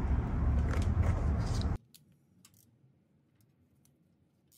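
Steady low rumbling background noise with a couple of faint clicks, cut off abruptly a little under two seconds in, then near silence broken by a few faint ticks.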